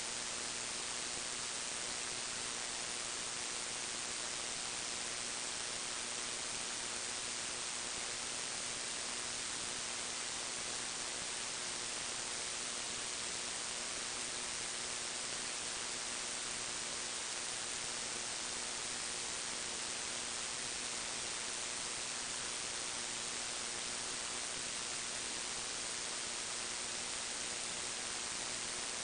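Steady recording hiss, brightest in the treble, with a faint steady hum underneath and no music or voices.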